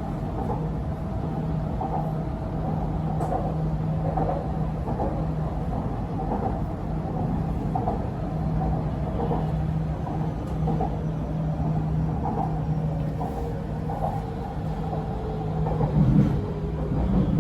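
Metro train running on the MRT Purple Line, heard from inside the car: a steady rumble with a low hum. Near the end a faint tone slides downward as the train slows for the next station, and there is a brief louder bump about 16 seconds in.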